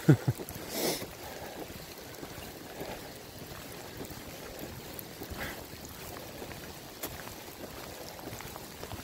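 Steady rain falling through the woods, an even hiss, with a brief rustle about a second in.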